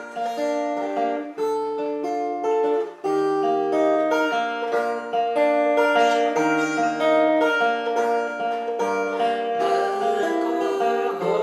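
Steel-string acoustic guitar with a capo, fingerpicked two-finger style: a steady rhythmic run of single plucked notes ringing together as chords.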